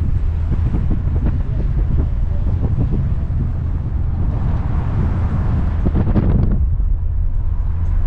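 Open-top Triumph TR5 on the move: its 2.5-litre straight-six engine running, mixed with road and wind noise on the microphone. The noise swells for a couple of seconds and eases off about six and a half seconds in.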